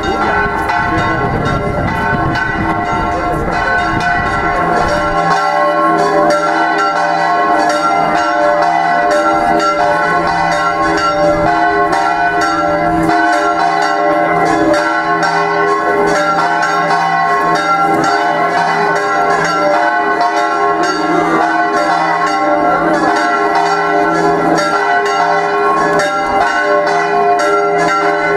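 Church bells pealing without pause, rapid strikes overlapping into a dense, continuous ringing. A low rumble lies under it for the first few seconds.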